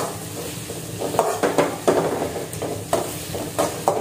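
Sliced onions, shallots and green chillies sizzling in hot oil in a metal kadai while a flat metal spatula stirs them, scraping against the pan a few times a second. The onions are being sautéed until soft.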